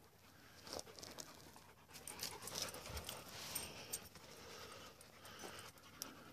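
A dog panting, with footsteps crunching on gravelly ground and a scatter of sharp clicks and scrapes.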